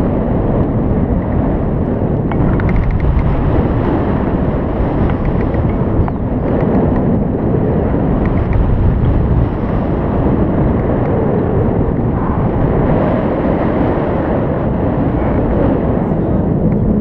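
Wind buffeting the microphone: a loud, steady rush of noise, heaviest in the low end, with no engine or voice in it.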